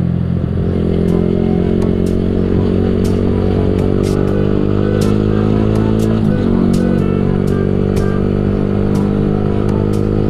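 Yamaha R15 V3's 155 cc single-cylinder engine pulling under throttle, its pitch rising steadily. About six seconds in, the pitch dips briefly as the bike shifts up from fourth to fifth gear, then climbs again.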